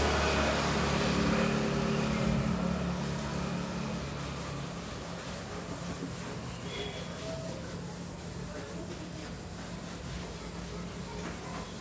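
Cloth duster rubbing marker off a whiteboard. A low steady hum is loudest in the first few seconds and then fades.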